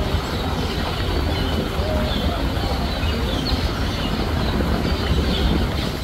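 A steady low rumble with short high chirps recurring over it.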